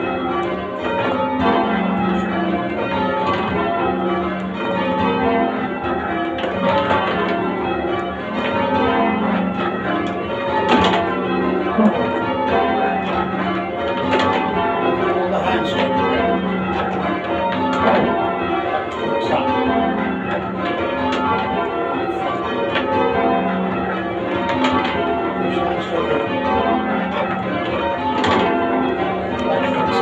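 A somewhat heavy ring of church tower bells being change rung: the bells strike one after another in a continuous, rapid, even pattern. They are heard from the ringing room directly beneath them.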